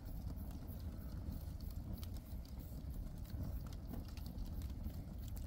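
Cardboard boxes and scrap wood burning in an open fire: a steady low rush of flames with many small, irregular crackles and pops.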